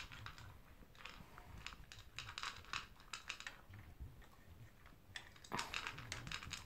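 A poodle eating from a plastic bowl: quick runs of crunching and clicking as it chews its food and noses the bowl, in bursts with short pauses, with a louder clatter about five and a half seconds in.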